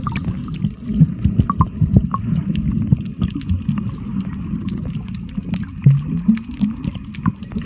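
Sea water heard through a camera held underwater: a low, muffled rumble with many scattered sharp clicks.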